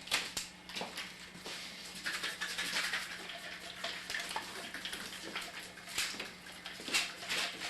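Irregular rustling and hissing handling noise with scattered small clicks and knocks.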